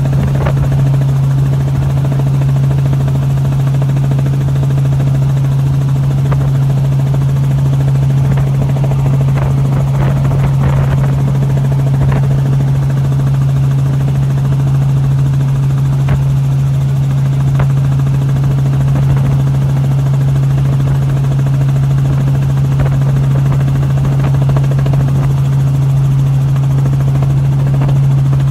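Steady, loud drone of the rotors of the aircraft filming from the air: one constant low hum over a wash of rushing noise, with no change in pitch.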